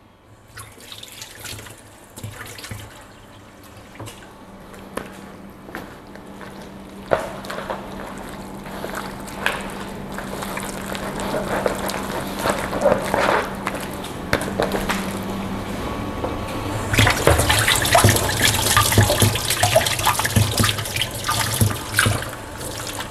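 Hand squishing squid pieces through a wet flour batter in a plastic bowl, with small irregular squelches and clicks; about two-thirds of the way in a kitchen tap starts running into the sink and becomes the loudest sound.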